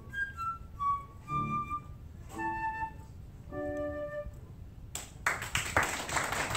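Concert flute playing the closing phrases of a piece over piano chords, ending on a held chord; about five seconds in, audience applause breaks out.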